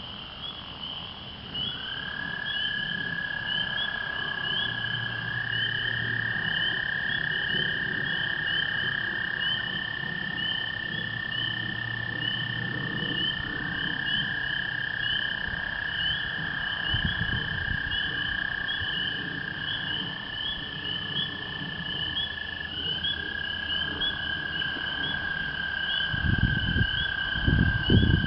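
Spring peeper chorus, a continuous stream of rapid high peeps, with several American toads giving long, steady musical trills that overlap one another, each lasting many seconds. Low thuds sound near the end.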